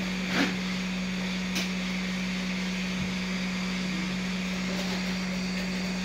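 SMD hot-air rework station handpiece, nozzle removed, blowing hot air steadily with a constant hum while it heats the underside of a printer logic board to melt the solder holding a USB port. Two faint clicks come about half a second and about a second and a half in.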